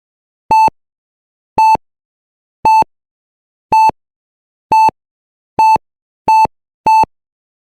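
Eight short electronic beeps, all at one pitch. They come about a second apart at first, then speed up over the last few.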